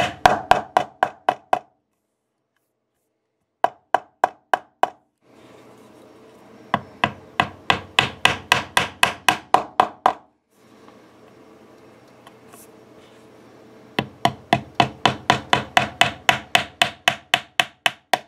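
Small mallet with a yellow plastic face tapping glued wooden plugs into holes in a solid guitar body. The taps come in quick runs of about four or five a second, with short pauses between the runs.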